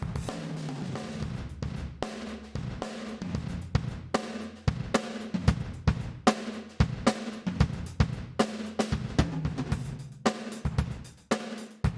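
Recorded drum kit playing, with kick, snare and cymbal hits. It is heard through the room microphones, heavily compressed ('crushed') by the TDR Molotok compressor plugin, which brings out the room ambience. A steady low ring runs under the hits, and they come faster after a few seconds.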